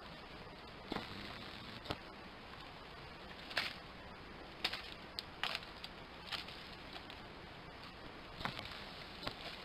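Irregular sharp snaps and crackles of twigs and dry leaf litter being handled and trodden on in undergrowth, about ten scattered through, over a faint steady hiss.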